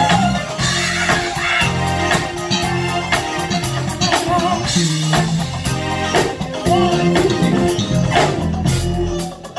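Live band playing an upbeat groove on drum kit, bass guitar and electric guitar, with some singing mixed in. The music drops off briefly near the end.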